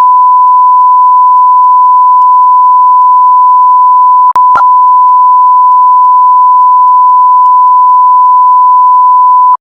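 A single loud, steady, high-pitched beep tone, held unbroken except for a brief glitch about four and a half seconds in, then cut off suddenly at the end: the continuous alert tone of a mock emergency alert broadcast.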